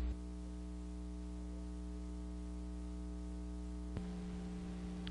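Steady electrical hum with a stack of even overtones over a faint hiss, and a small click about four seconds in.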